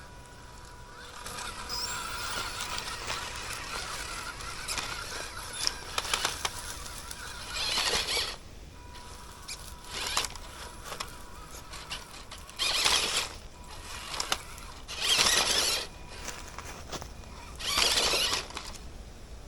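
Small electric radio-controlled jeep driving off-road: a thin steady whine from its motor and gears under a hiss of tyres on dirt, with four louder rushes of tyre and gravel scrabbling of about a second each in the second half.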